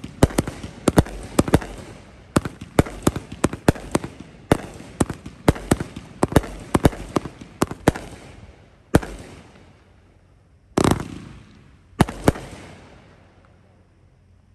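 Blazing Fire consumer firework cake firing aerial shells: sharp reports come several a second, then thin out after about eight seconds to a few last separate bangs and die away.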